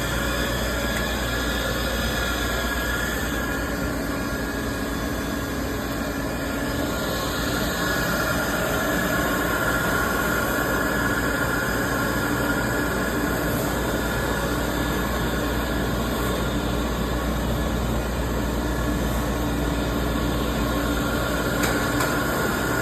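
Steady machine noise: a continuous rushing hum with a few held tones, level throughout.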